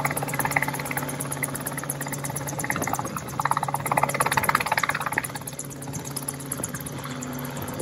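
Small open-frame single-seat helicopter hovering low and then flying off. Its engine runs steadily under a rapid rotor chop, loudest in the middle and easing in the last few seconds as it moves away.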